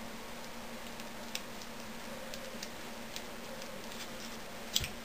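Spatula prying apart glued-together LiPo battery packs: scattered light clicks and ticks, with a sharper double click near the end, over a steady low hum.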